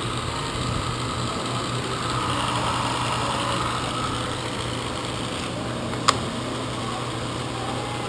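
Burgmaster turret drill press running, a steady motor hum with mechanical whirr, and one sharp click about six seconds in.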